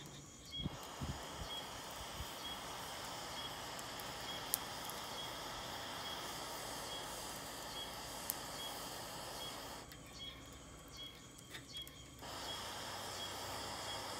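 Air blown by mouth through a metal fire-blowing pipe onto the fire, a steady hiss: one long blow of about nine seconds, a pause for breath of about two seconds, then blowing again.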